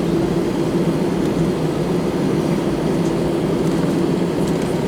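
Steady aircraft cabin noise in an Airbus A319: an even low rumble with a constant hum, unchanging throughout.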